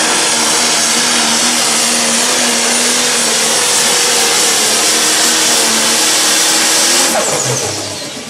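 A Pro Stock pulling tractor's turbocharged diesel engine runs at full throttle under load as it drags the weight sled, steady and very loud. About seven seconds in, the throttle is cut: the level drops and a whine falls away.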